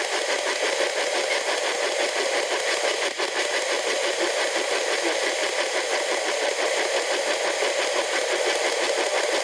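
P-SB11 dual-sweep FM spirit box scanning radio frequencies: a steady stream of rapidly chopped static hiss.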